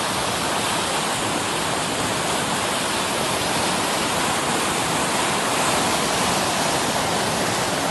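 Muddy flash-flood water rushing in a torrent, a steady loud rush without let-up.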